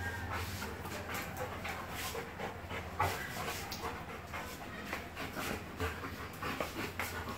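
Rottweiler panting in a quick run of breaths while play-wrestling, with scuffles and a few knocks, over a steady low hum.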